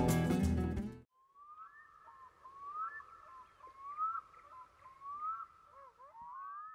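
Background music stops about a second in. Then a bird calls faintly with a short rising whistle, repeated about once a second, five or six times.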